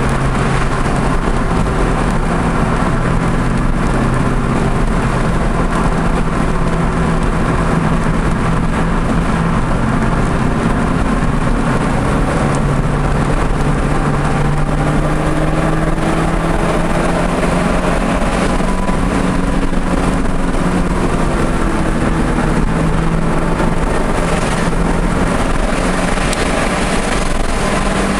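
Audi TT's engine running hard at lapping speed, its pitch climbing and dropping as the revs change through gears and corners, over a steady rush of road and wind noise.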